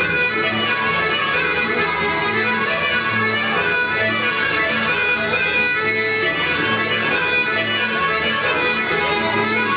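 Serbian folk dance tune from Šumadija, led by accordion, playing steadily without a break.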